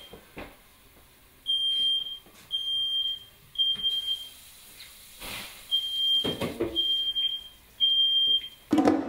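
Smoke alarm sounding in the temporal-three pattern: three short, high, even beeps, a pause of about a second and a half, then three more, with a few faint knocks in between. It has been set off by smoke from a kitchen fire.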